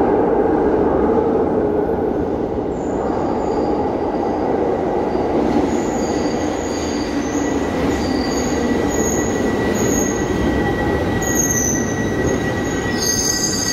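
Glasgow Subway train running in from the tunnel and into the station: a steady rumble of wheels on rail, with a thin steady whine and short high wheel squeals that grow louder and closer together near the end.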